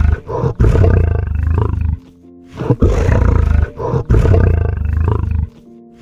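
A big cat roaring in two long, loud, rough bouts, the second starting about two and a half seconds in, over background music.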